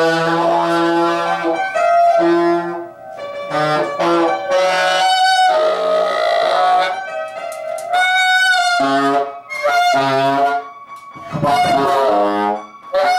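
Saxophone playing a string of separate notes, some held and some short, with brief gaps between them and a short noisy blast near the end.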